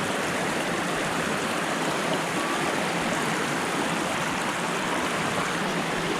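Creek water rushing steadily over rocks, a continuous even wash of sound.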